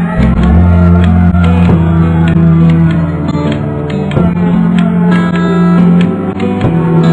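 Background music: a song with guitar and a sustained bass line, no vocals in this stretch.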